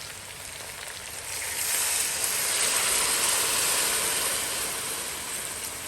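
Water poured into a hot Dutch pot of browned chicken in sauce, hissing and sizzling as it hits. The hiss swells about a second in and slowly eases off.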